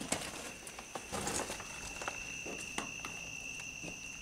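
Scattered footsteps, with small knocks and scuffs of people moving about a room strewn with debris, over a steady high-pitched whine or drone that holds two constant pitches.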